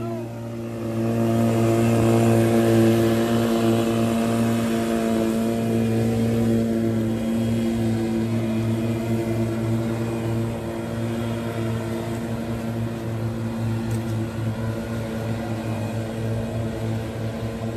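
Motorboat engine running at a steady, high speed, with the rush of water under the hull. It swells over the first couple of seconds and then slowly fades a little.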